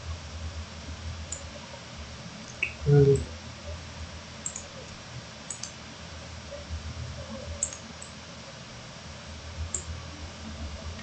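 Computer mouse clicking: about half a dozen faint, widely spaced clicks over a steady low hum, with one brief louder low sound about three seconds in.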